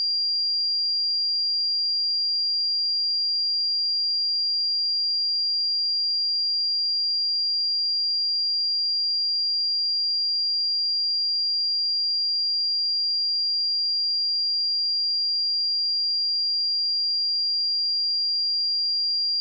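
A pure 4772 Hz sine-wave test tone, a single steady high-pitched whistle held at a constant level.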